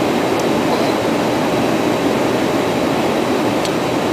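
Steady rush of airflow and engine noise inside the cockpit of a Dassault Falcon 2000LX business jet on approach, a low, even rumble with a couple of faint ticks.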